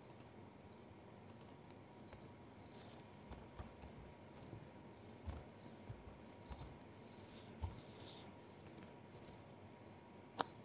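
Faint computer keyboard typing: scattered, irregular key clicks, with one sharper, louder click near the end.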